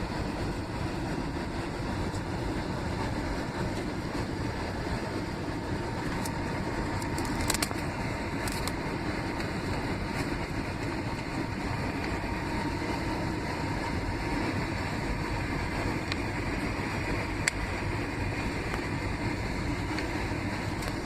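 Steady airliner cabin noise: the jet's engines and the rush of air heard from inside the passenger cabin, a low even roar with a faint steady hum. A few brief clicks sound now and then.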